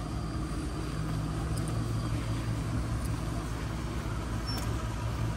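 Shuttle bus engine running with a steady low hum, and a few faint clicks.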